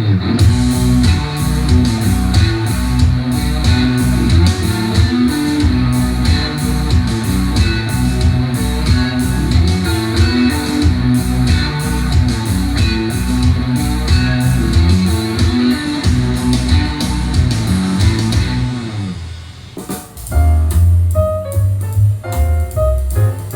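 Recorded music with guitar and drums played through Edifier 1280 bookshelf speakers driven by an FX Audio Tube 03 tube preamp, as a test of the preamp's op-amp. The track fades about 19 seconds in, and a new passage with piano and a heavy bass line starts.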